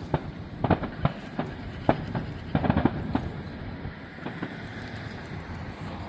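Fireworks going off at a distance: a string of sharp pops and cracks in the first half, thinning out to a steady rumble after about four seconds.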